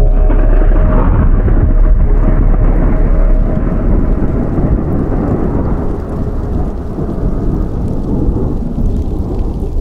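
A long rolling thunder rumble with a rain-like hiss. It comes in suddenly, is loudest at first, and slowly eases off over several seconds.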